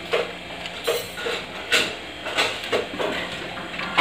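Kitchen utensils and cookware handled off to the side, giving a series of irregular light knocks and clinks.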